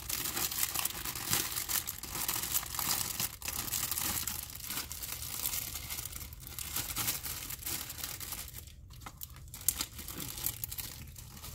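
Packaging being handled, crinkling and rustling continuously, then in sparser crackles near the end.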